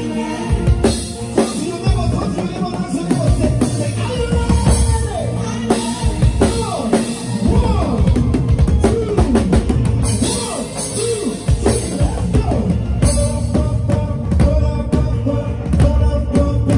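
Live praise band playing an upbeat groove: drum kit and heavy bass pulsing under sliding melodic lines.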